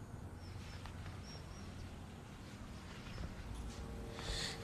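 Quiet background with a low hum and a few faint, short high chirps, typical of small birds.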